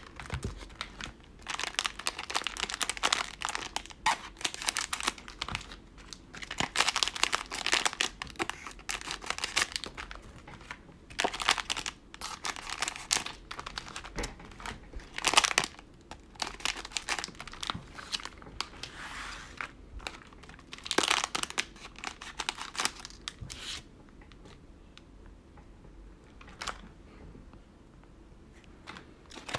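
Plastic wrappers of 2020 Panini Mosaic Football cello packs crinkling in irregular bursts as they are handled and snipped with scissors. The rustling dies down for the last few seconds, leaving one faint click.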